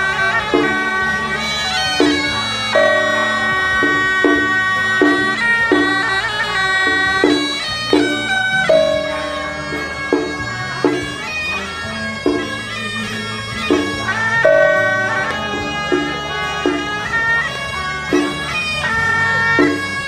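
Taiwanese temple-procession music: a loud suona (Chinese double-reed horn) plays a held, shifting melody over regular drum strikes, with a ringing percussion stroke about every six seconds.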